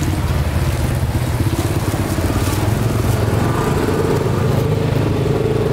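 Small motorcycle engine running close by, a steady rapid putter that grows a little stronger in the second half.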